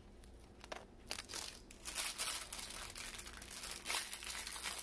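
Thin plastic bag of Lego pieces crinkling as it is handled. Faint at first, then a dense run of crackles from about a second and a half in.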